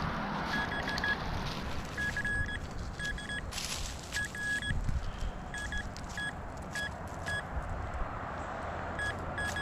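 Metal detector giving short, high, repeated beeps in small groups while it is swept over a buried target, which turns out to be a bottle cap. A brief rush of noise comes about three and a half seconds in.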